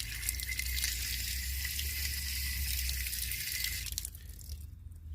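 Running water, a dense crackly hiss with a faint steady whine in it, over a low hum; the water stops about four seconds in.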